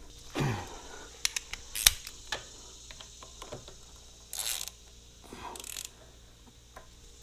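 Hand tools clinking as they are picked up, then a socket ratchet clicking in two short bursts as it works the 10 mm bolts of a Honda Grom's front sprocket retainer.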